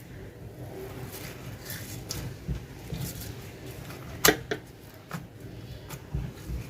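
Clear glue slime being mixed with polystyrene beads: a faint rustle with scattered sharp crackles and clicks, the loudest about four seconds in.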